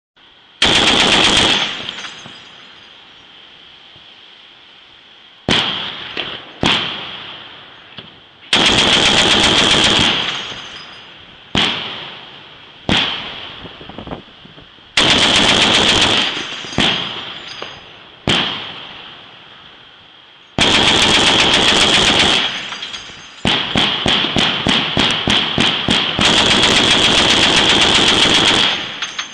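Shipboard heavy automatic weapons firing: long bursts of rapid fire lasting one to two seconds, with single shots and short bursts between them that ring on briefly after each. Near the end comes a quick string of very short bursts, then a last long burst.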